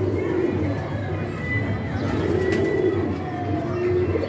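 Domestic pigeons cooing, a run of low, rolling coos one after another.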